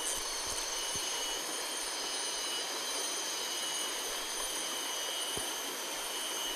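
Steady rush of flowing river water, an even hiss with a few thin, steady high-pitched tones over it.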